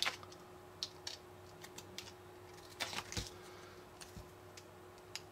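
Small scissors snipping a thin printed sheet, cutting out a tiny piece: a few faint, irregular clicks and snips, with a couple of soft knocks from handling.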